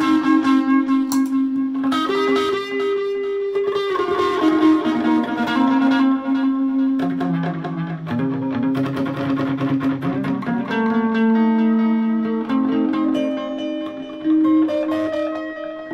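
Electric guitar playing a slow melodic line of long, sustained notes, often two notes ringing together, through effects pedals.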